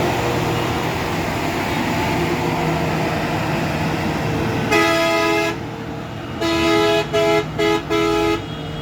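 Heavy vehicle engines running in slow traffic, then a two-tone vehicle horn honking: one blast just past halfway, a short pause, then four blasts in quick succession, the last three short.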